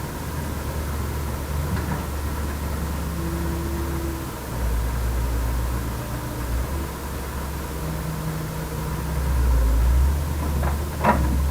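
Heavy diesel engine of earthmoving machinery running, its low rumble rising and falling, with one sharp knock near the end.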